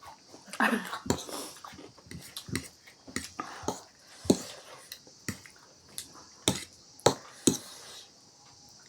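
Close-up eating sounds: a string of irregular sharp crunches and clicks, about a dozen, with the loudest few between six and seven and a half seconds in, over a steady hiss.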